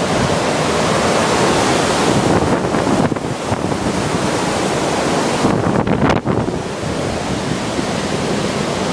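Hurricane wind rushing and buffeting the microphone: a loud, steady noise that eases briefly about three seconds in and again around six seconds.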